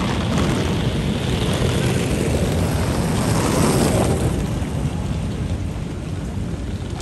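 City street traffic: a vehicle passing close by, its noise swelling to a peak about four seconds in and then fading.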